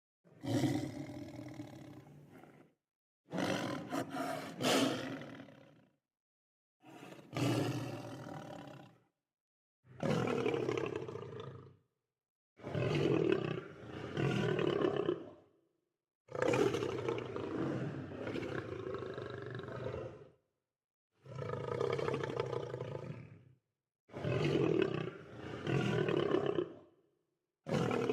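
Lions roaring: about nine separate roars, each two to four seconds long, with brief gaps of dead silence between them.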